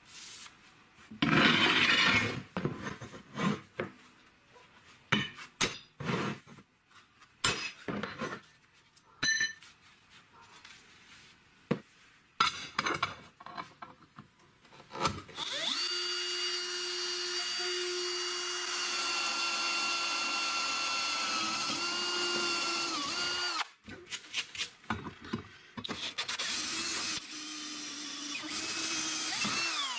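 Electric drill boring into steel plate: a steady whine starts about halfway through, runs for around eight seconds, sags briefly and stops, then a second, shorter run comes near the end. Before it, a loud scraping on metal about a second in, and scattered clinks of steel pieces being handled.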